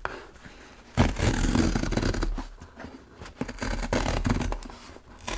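Tear strip of a corrugated cardboard mailer box being pulled open, ripping the cardboard along the top edge: a sudden rip about a second in, then a second, more broken stretch of tearing a couple of seconds later.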